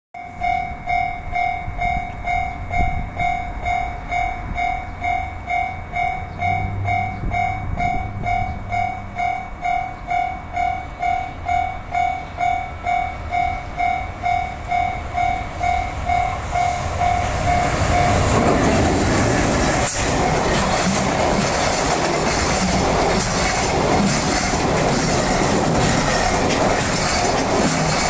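Level-crossing warning bell dinging about twice a second. About 18 seconds in, an EH500 electric locomotive and its container freight wagons pass at high speed, and the loud steady noise of the train's wheels and wagons covers the bell.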